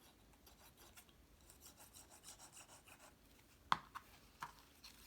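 Cardstock pieces rubbing and sliding against each other as they are handled and lined up, with one sharp tap a little after halfway and two lighter taps soon after.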